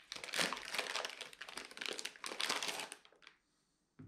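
Shiny plastic packaging bag crinkling as it is handled and unwrapped by hand. The crinkling stops about three seconds in, and a light knock follows near the end.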